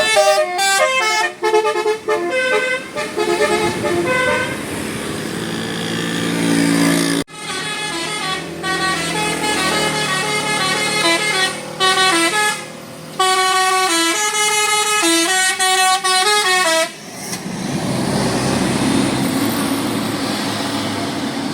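A bus's telolet basuri multi-tone air horn playing a melody of stepped notes, in two phrases with a break in the middle. About three-quarters of the way through the tune stops and a steady rumble of the bus and road noise remains.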